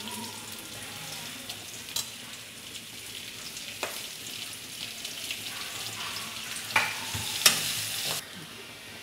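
Chopped onions and curry leaves sizzling in hot oil in a metal kadai, stirred with a slotted steel spatula that scrapes and clinks against the pan. The clinks are loudest in a short cluster about seven seconds in.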